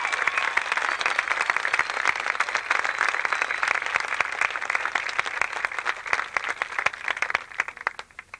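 Audience applauding, thinning to a few scattered claps that stop near the end.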